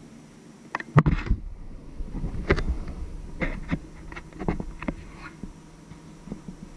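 A refrigerator door shuts with a sharp knock about a second in. A run of lighter clicks and knocks from handling follows over the next few seconds.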